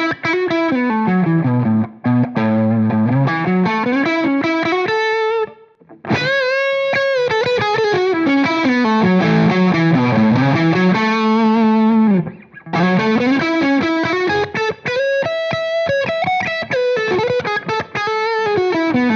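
Electric guitar on its neck pickup through a Soldano SLO pedal with the gain set to crunch, playing a distorted Marshall-style lead line of quick note runs, string bends and vibrato. The playing breaks off briefly twice, about six seconds in and again about twelve seconds in.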